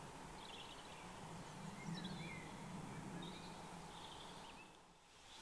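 Faint birds chirping: scattered short calls and brief rising and falling notes over a quiet, even background hiss, dipping away briefly near the end.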